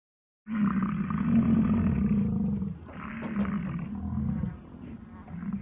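A bull bellowing, in two long calls of about two seconds each, then a weaker third that cuts off at the end.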